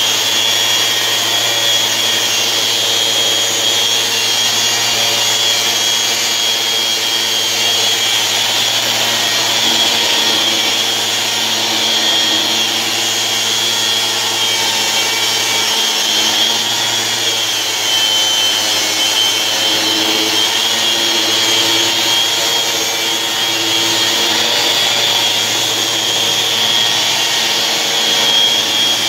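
Electric sander running steadily as it sands a tabletop: a constant high whine over a hiss of abrasive on the surface.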